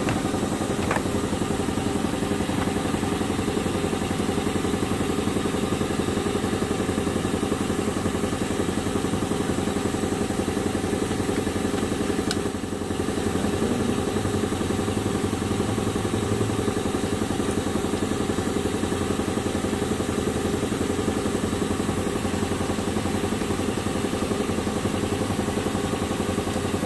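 A steady engine-like machine hum, with a brief drop in level a little before halfway.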